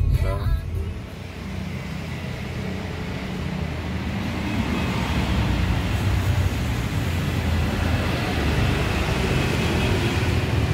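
Steady low rumble of vehicle and traffic noise.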